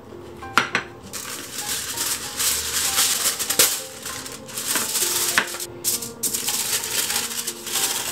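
Crinkling and rustling of a glossy plastic wrapper as it is handled and folded by hand, with many small crackles.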